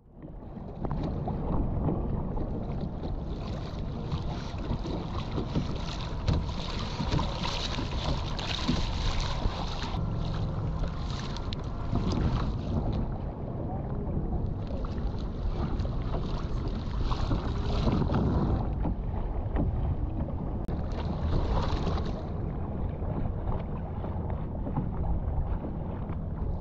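Wind buffeting the microphone over water lapping and splashing against a kayak's hull on choppy water, with stretches of brighter splashing that come and go.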